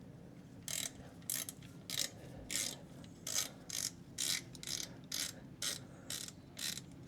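Ratchet wrench clicking in repeated short strokes, about two a second, as an exhaust manifold bolt is threaded into the cylinder head. The strokes begin about a second in.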